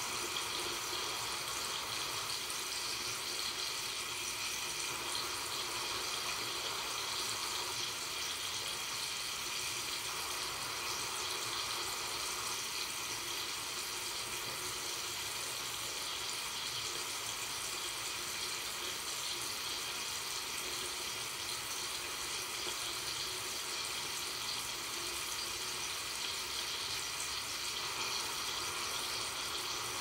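Water running steadily from a tap into a sink: an even, unbroken hiss of splashing water with little low rumble.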